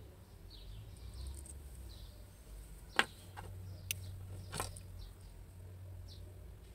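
A few sharp clicks and taps from steel pliers and copper wire being handled on a tabletop, the loudest about three seconds in. Small birds chirp faintly in the background over a low steady rumble.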